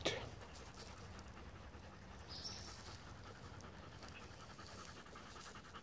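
Airedale Terriers panting faintly and steadily.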